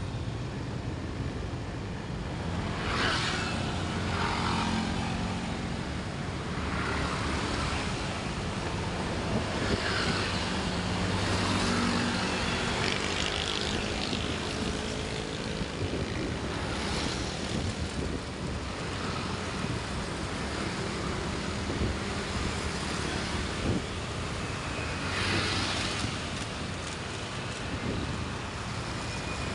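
Road traffic of cars and motorbikes running steadily, with several vehicles passing close every few seconds.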